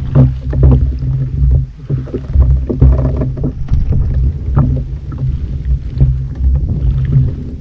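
Fishing kayak on moving sea water: a low rumble of water and wind against the hull and microphone that swells and fades about twice a second, with scattered small knocks.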